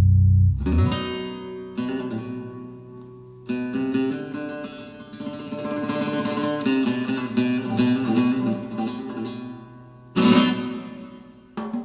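Recorded music played back through Dali Ikon 5 mk2 loudspeakers. A deep bass note ends just under a second in, then a run of plucked-string notes, and a loud struck chord comes about ten seconds in.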